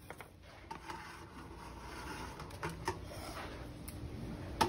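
Metal clinks and knocks as a basket of burning charcoal is lowered into a tabletop grill and handled, with one louder clank near the end.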